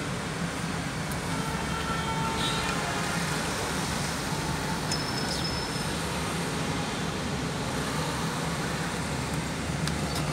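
Steady rumble of road traffic with a low hum, and a few faint clicks near the end.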